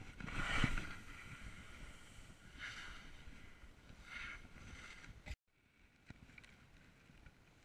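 Wind noise on the microphone with a swishing scrape of snow every second and a half or so, plus a thump about half a second in. It cuts off abruptly just over five seconds in, and only faint noise follows.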